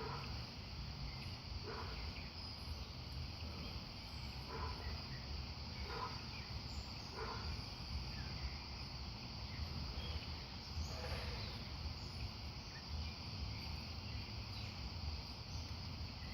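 A steady, high-pitched outdoor insect chorus with a low rumble beneath it.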